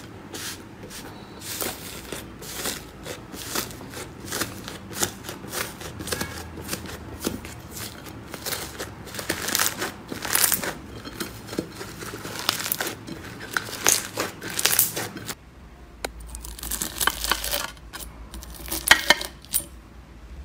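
Slime being squeezed, stretched and poked by hand, giving a dense run of crackling, popping clicks. The crackling pauses briefly about fifteen seconds in, then goes on.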